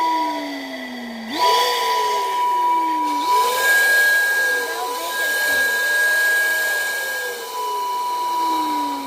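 Steam whistle blowing over a steady hiss: a steady high whistle tone, joined by a higher one for part of the time, and under them a lower tone that slowly slides down in pitch, swoops back up twice, wavers, and then falls again near the end.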